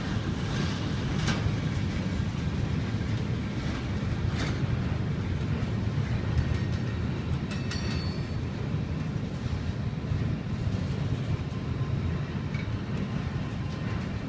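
Container freight train wagons rolling past with a steady low rumble of wheels on rails and a few scattered clicks. A brief high squeal comes about eight seconds in.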